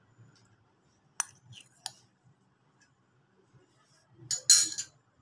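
Spoon clinking against glassware as lemon juice is spooned into glasses: two sharp clinks, then a louder short flurry of clinks and scraping near the end.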